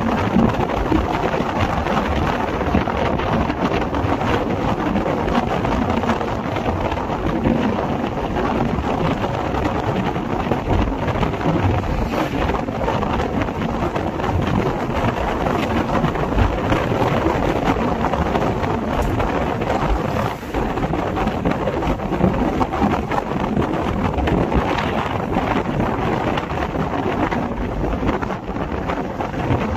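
Steady wind buffeting the microphone over the rumble of a moving vehicle on a rough road.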